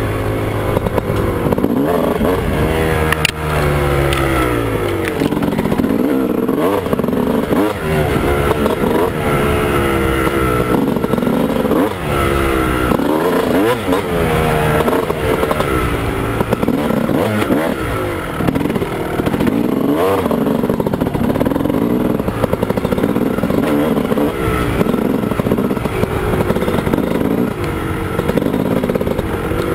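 A 2001 Honda CR250's two-stroke single-cylinder engine, fitted with a Steahly 10 oz flywheel weight, revving up and down over and over as the dirt bike is ridden along a wooded single-track trail, heard from a helmet camera. A few knocks and rattles come through from the bike over the rough ground.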